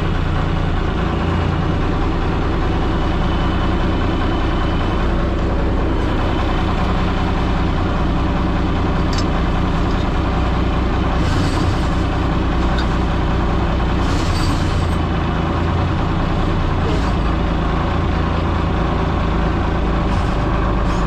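A fishing boat's engine running steadily at an even pitch, under load from the rope winch that hauls in the net. A few short knocks come in the middle.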